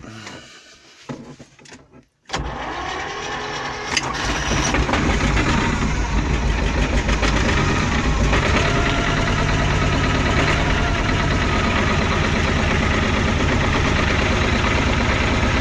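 Vladimirets T-25 tractor's two-cylinder air-cooled diesel cold-started on a weak battery: it cranks from about two seconds in, catches and gets louder around four seconds in, then runs steadily.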